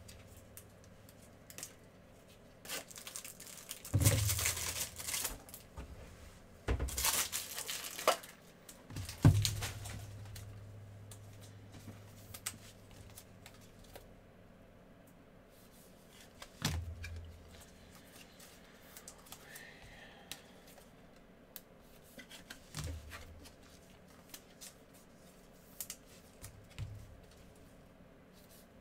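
Trading-card packs being torn open and their wrappers crinkled, with cards sliding and tapping against each other in gloved hands. A few loud rips come in the first ten seconds, then quieter rustling and handling.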